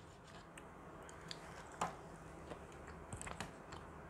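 Faint close-miked chewing of a Subway cookie, soft mouth sounds with a few small sharp clicks.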